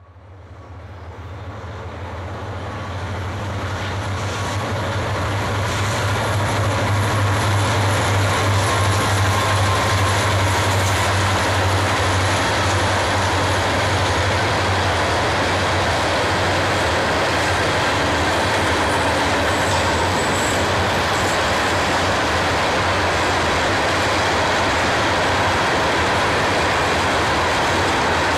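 Freight train passing at track speed: the steady rolling noise of wheels on rails, growing louder over the first several seconds and then holding steady.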